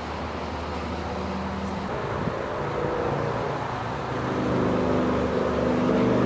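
A motor vehicle's engine running nearby, a low hum with a pitched drone that grows louder in the second half.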